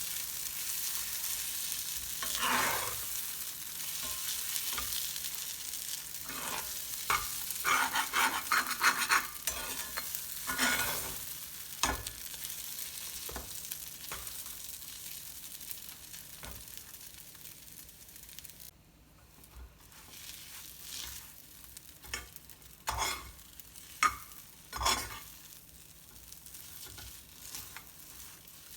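Food frying in hot oil in a pan, sizzling, with a spatula stirring and scraping at intervals. The sizzle grows fainter in the second half.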